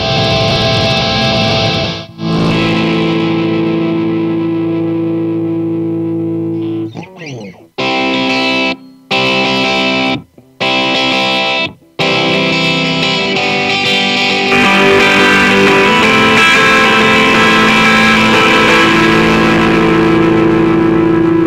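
Electric guitar through the Plexi Lead amp model of Steinberg's VST Amp Rack amp simulator, with a distorted tone: chords strummed and left to ring, stopped short several times in the middle, then a long held chord that grows louder.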